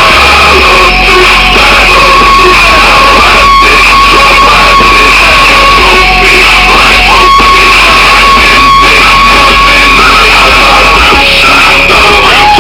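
Music played very loud through a pair of 30 cm subwoofers, the recording saturated and distorted. Deep bass notes are held steady and change pitch about half a second in and again near the end.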